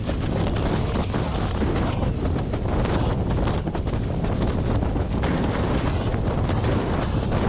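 Heavy wind buffeting on a GoPro's microphone mounted on a windsurf boom, with water rushing past the board as it planes at about 55 km/h.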